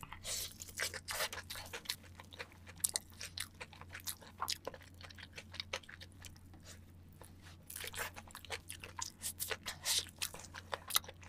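Close-up crunching and chewing of crispy sauced fried chicken, with irregular sharp crunches and bites throughout, over a steady low hum.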